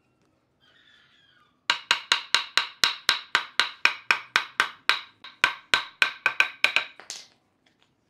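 Mallet blows on a wooden bed post, driving a bed rail's joint home: a quick run of about two dozen sharp, ringing wooden knocks at about five a second, starting about a second and a half in.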